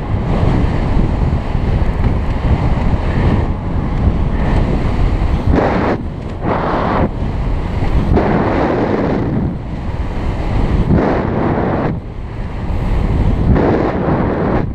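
Heavy wind buffeting on a helmet-mounted camera's microphone on a bicycle moving at race speed, a steady low rumble that swells several times.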